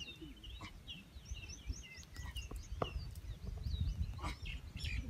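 Several birds chirping and twittering in quick, rising and falling notes over a steady low rumble, with a few faint clicks.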